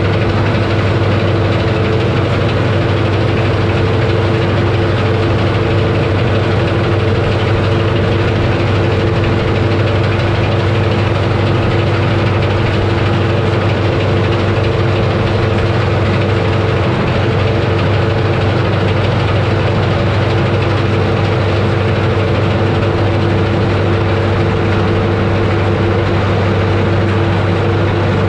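Massey Ferguson 31 combine harvester running steadily while cutting oats: the engine and the header and threshing machinery make one loud, even drone with a few constant low hums.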